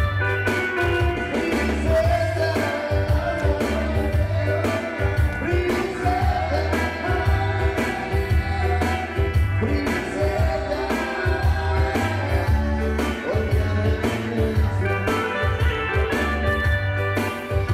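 A Tetum-language song: a voice singing over a band with a steady bass line and drum beat.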